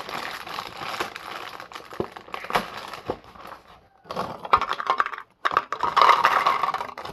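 Sour Patch Kids cereal pieces pouring from the box into a bowl, a dense crackling patter of many small hits, heavier in the second half with short breaks as the box is tipped, along with crinkling of the packaging.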